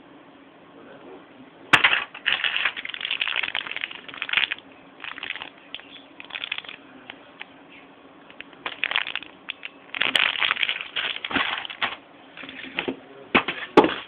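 Plastic wrapping crinkling and rustling in irregular bursts as a cable accessory is handled, with a sharp click about two seconds in and another near the end.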